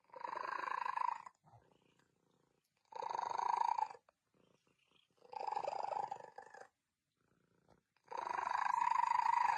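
A cat purring loudly in four long pulses, about a second and a half apart, each lasting roughly a breath.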